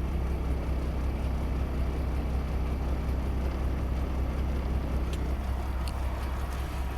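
PACCAR MX-13 inline-six diesel in a Kenworth T680 idling steadily with a low, even rumble. Two faint ticks come near the end.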